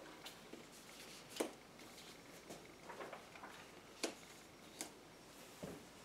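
Faint, scattered taps and paper rustles as picture cards are handled and pressed onto a chalkboard, about half a dozen soft knocks, the sharpest about a second and a half in.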